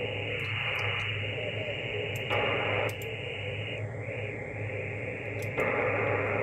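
Yaesu FT-901DM receiver hiss on the 10-metre sideband band, with a weak station barely audible in the noise. The hiss jumps louder and softer a few times and its top is narrowed around four seconds in, as the filter width and reject controls are turned.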